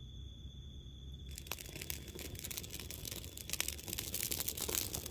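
Crickets chirping in a steady high trill, then, after a sudden break a little over a second in, dense irregular crackling and crinkling that grows louder toward the end.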